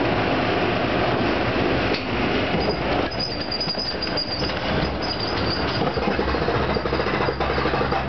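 Roller coaster train rolling along its steel track, a steady rumble with a brief high wheel squeal about three seconds in. About six seconds in, a fast, even clacking sets in as the train is pulled up the lift hill.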